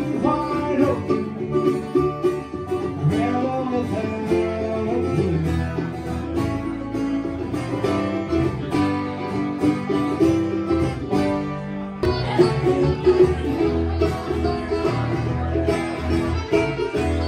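A country band playing an instrumental passage with plucked strings to the fore and no singing. The sound fills out about twelve seconds in.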